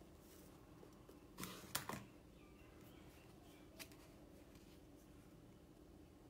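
Near silence with a few light clicks and taps, a quick cluster about one and a half to two seconds in and a single click near four seconds: small handling sounds of card and glue on a craft table.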